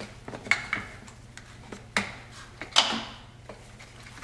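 Metal clinks and scrapes of a wrench working the 10 mm nut on a car battery's negative terminal clamp: a few sharp clicks at uneven intervals, the loudest just before three seconds in.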